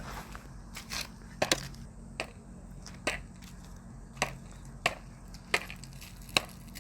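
Popcorn kernels popping one at a time over a charcoal shichirin brazier: about nine sharp pops, irregularly spaced roughly a second apart, the slow scattered popping of the start or tail end of a batch.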